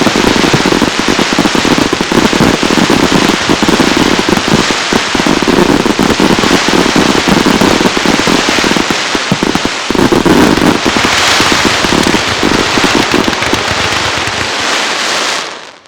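Fireworks grand finale: a dense, unbroken barrage of firework bursts and crackling, with a fresh loud surge about ten seconds in, falling away sharply near the end.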